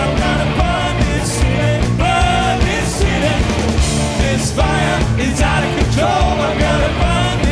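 Live rock band playing a loud, driving song on electric guitars, keyboards and drums, with a sung vocal line rising and falling over it.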